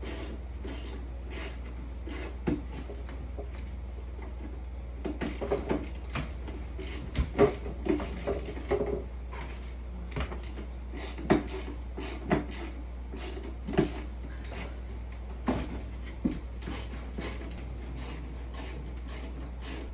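Irregular knocks, taps and clicks from hands working on the metal frame of an animal enclosure from underneath, during assembly, over a steady low hum. The knocks come thickest in a cluster in the middle.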